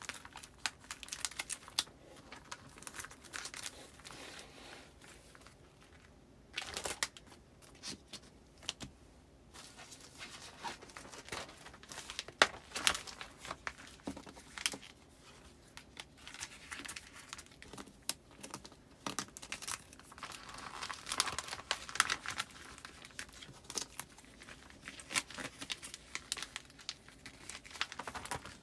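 Postcards and plastic file sleeves being handled and slid into a binder: irregular crinkling and rustling with many small clicks and taps, sparser for a few seconds near the start.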